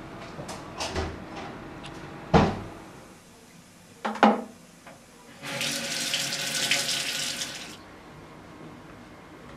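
Two sharp knocks a couple of seconds apart, then a wall-mounted bathroom mixer tap running into the washbasin for about two seconds before it is shut off abruptly.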